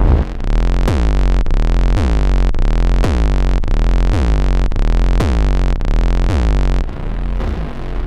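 Make Noise Strega synthesizer playing a repeating pulse a little under twice a second over a deep steady bass drone, each pulse a click followed by a tone that sweeps in pitch. Near the end the pulses stop and a noisier texture takes over.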